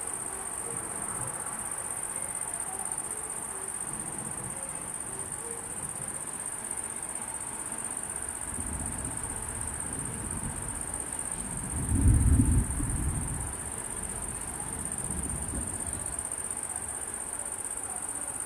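Steady high-pitched chorus of night insects, with a low rumble of thunder that builds from a little under halfway in, is loudest about two-thirds of the way through, then fades away.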